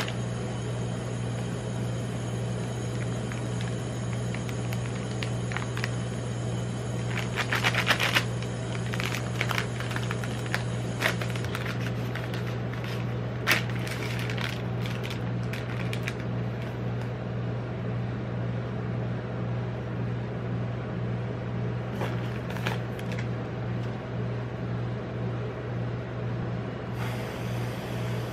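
Plastic wrapper of a chocolate-coated ice cream bar crinkling and tearing in crackly bursts, loudest about eight and thirteen seconds in. A steady low machine hum from the rolled-ice-cream cold plate runs underneath. Near the end comes the hiss of whipped cream spraying from an aerosol can.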